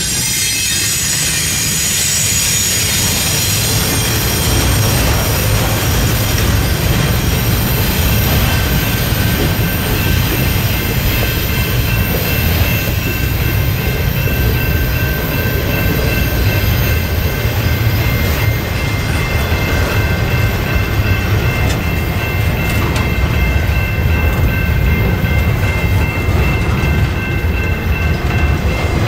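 Double-stack container train's well cars rolling past: a steady rumble of steel wheels on rail, with a thin, high wheel squeal ringing over it.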